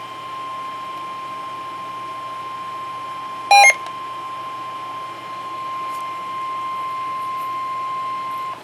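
NOAA Weather Radio warning alarm tone: a steady single-pitched 1050 Hz tone over faint hiss, sent to signal that an urgent warning, here a severe thunderstorm warning, follows. About three and a half seconds in, a much louder, very brief electronic beep cuts in over it. The tone cuts off near the end.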